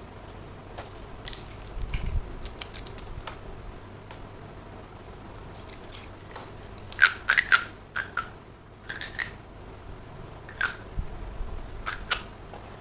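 Small toy kitchen pieces being handled: scattered clicks and taps, with a quick cluster of sharper clinks about seven seconds in, some ringing briefly.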